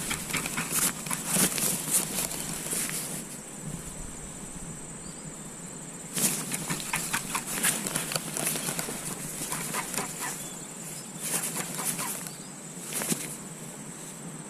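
Insects trilling steadily in a high pitch, broken three times by bursts of rustling and clicking: near the start, in the middle, and near the end.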